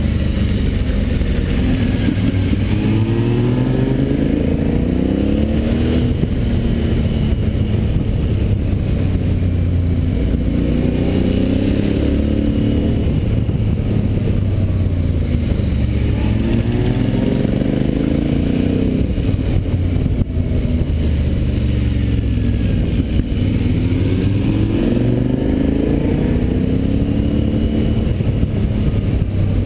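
Motorcycle engine pulling through a run of bends, its pitch rising under acceleration and dropping back several times, over steady wind and road noise.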